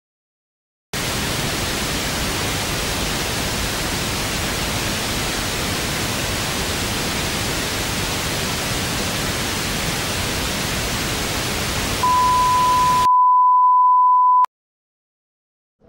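Television static hiss, a steady white noise that starts about a second in and cuts off suddenly. Near the end a single steady colour-bar test tone comes in over it, carries on alone briefly and then stops abruptly.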